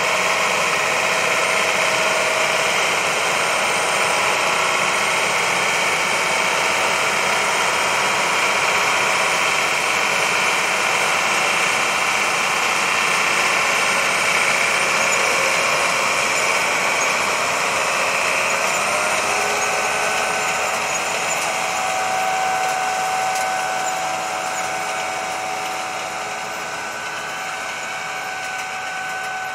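Gomselmash Palesse 2U250A power unit working in the field with an Amazone planter: its engine runs steadily under load, with a steady mechanical whine over it. The whine's pitch steps up about two-thirds through, and the sound then gets somewhat quieter as the machine moves farther off.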